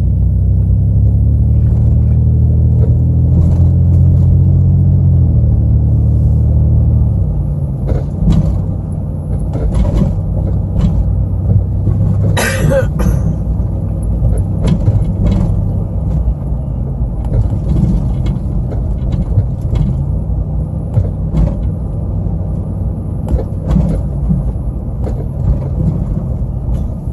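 Vehicle engine running: a steady low hum for about the first seven seconds, then a rougher, changing rumble, with scattered light clicks and a short hiss about twelve seconds in.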